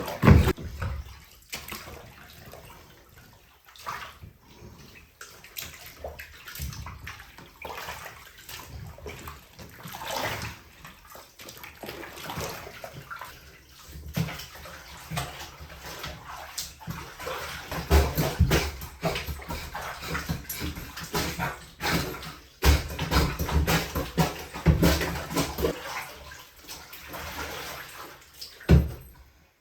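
Laundry and soapy water sloshing and splashing in a bathtub as the load is worked for washing. The strokes are irregular, with some louder low thumps.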